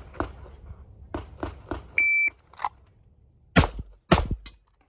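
After a run of faint sharp cracks, an electronic shot timer gives one short, steady beep. About a second and a half later a handgun fires two loud shots about half a second apart: the shooter's draw and first two rounds on the start signal.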